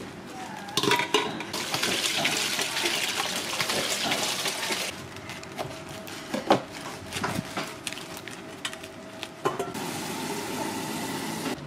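Kitchen sounds: water running for a few seconds, then scattered knocks and clinks of utensils, then a second stretch of steady hiss near the end.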